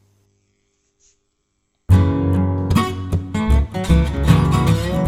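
A faint low hum fades into near silence, then about two seconds in guitar music starts playing loudly through the 3055-transistor amplifier's working channel A speaker.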